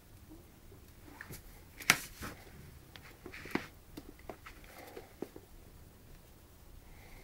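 Puppies' claws and paws clicking and tapping on a wooden floor as they scamper and play: scattered light clicks, the sharpest about two seconds in.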